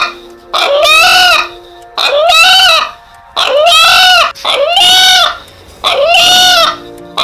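A chicken calling over and over, about five loud drawn-out calls each rising then falling in pitch, roughly one a second; the video presents the call as the bird saying "Allah".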